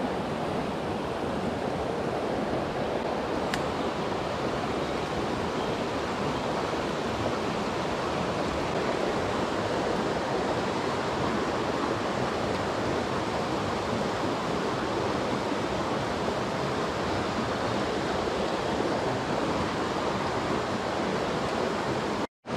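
Steady rush of stream water flowing over rocks, with one faint click about three and a half seconds in; the sound cuts off suddenly near the end.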